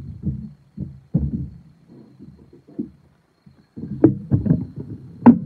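Handling noise of wooden carvings being moved and set down on a work table: irregular dull thumps and knocks, with sharper knocks about four seconds in and again near the end.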